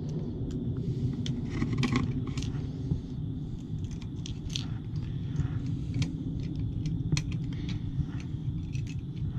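Light clicks and small metal rattles from the outlet's screws and hardware being handled, over a steady low rumble.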